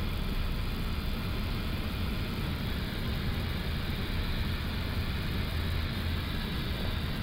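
Steady flight-deck noise of an Airbus A330-200 descending on approach with flaps 2 set: a low rumble of airflow and engines under an even hiss, unchanging throughout.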